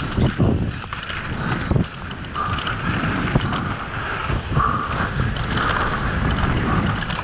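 Wind noise on the camera microphone and tyres rolling fast over a dry dirt track as a Santa Cruz V10 downhill mountain bike descends, with a couple of thumps from bumps in the first two seconds.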